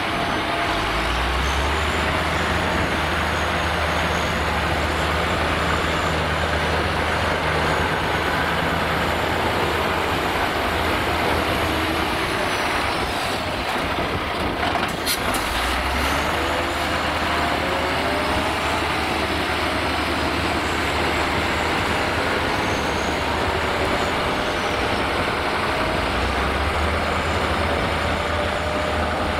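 Scania P440 6x6 dump truck's diesel engine pulling a load of sand through mud, its note rising and falling with the throttle. A sharp click sounds about halfway through.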